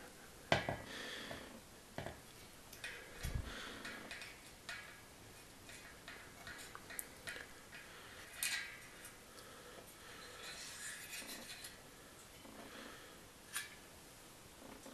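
Quick-release skewer being unscrewed and slid out of a rear bicycle hub: faint, scattered metallic clicks, rattles and scraping, with a soft thump about three seconds in.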